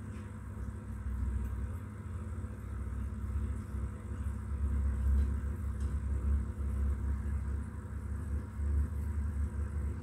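A steady low rumble that swells and dips, louder around the middle, with a faint even hum above it.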